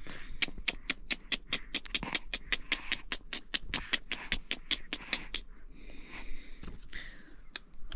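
A fast, even run of sharp knocks, about six or seven a second, stopping about five and a half seconds in. A softer rustling noise follows near the end.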